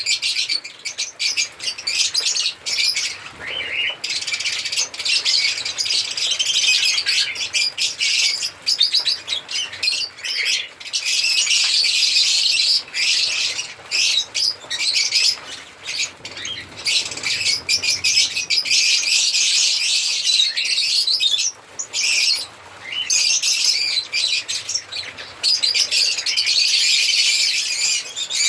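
Several African lovebirds chirping, a dense run of rapid, high-pitched chirps with a few brief pauses.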